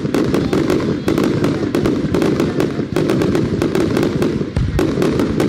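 Aerial fireworks going off in rapid succession: many sharp bangs and cracks a second, one running into the next over a continuous low rumble.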